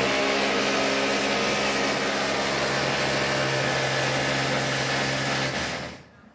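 A steady electric motor hum with a rushing hiss, running evenly and then dying away near the end.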